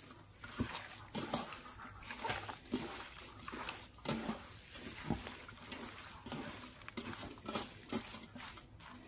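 Hands squeezing and kneading chunks of raw meat in a wet spice marinade in a stainless steel pot. The sound is irregular wet squelches and rustles, about one every half second.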